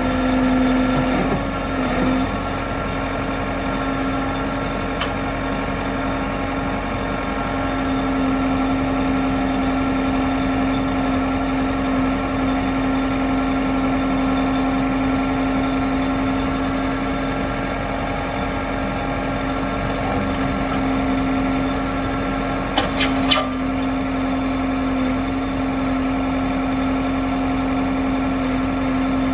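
JCB 214 Series 3 backhoe loader's diesel engine running at a steady speed, with a strong steady hum over it. A few sharp knocks about 23 seconds in.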